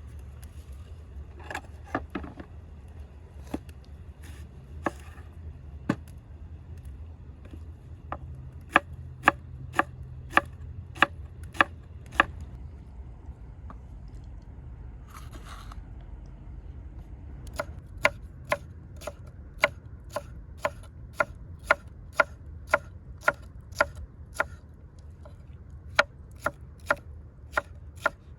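Knife chopping vegetables on a wooden cutting board: single sharp strokes, a few scattered at first, then two steady runs of about three strokes every two seconds with a short scrape between them.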